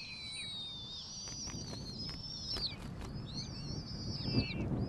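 Ferruginous hawk nestlings begging: several high, thin calls overlapping. A long, slowly falling call comes in the first second, and a run of short arching calls in the second half, over a low rustling noise.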